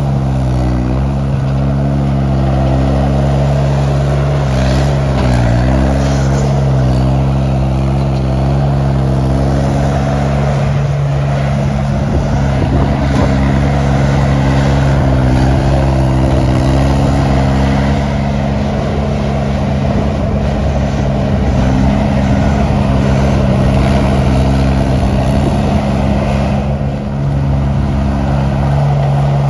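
Small Bobcat-type skid-steer loader's engine running steadily while clearing snow, its note dipping briefly a few times as it works.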